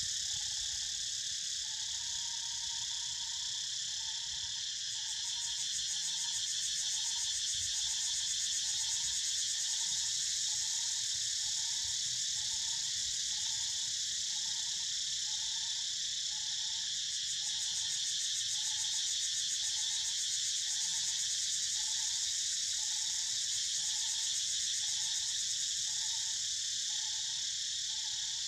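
Dense insect chorus, a steady high shrill buzzing, with a short mid-pitched note repeating evenly about every two-thirds of a second.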